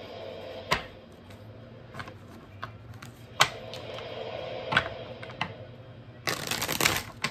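Tarot cards being shuffled and handled: scattered sharp card snaps and taps, then a rapid flurry of card clicks lasting under a second near the end.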